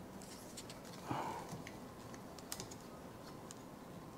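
Light, irregular plastic clicks and ticks of a new Hansa wiper blade's clip being worked onto the hook of a Toyota Rush's front wiper arm.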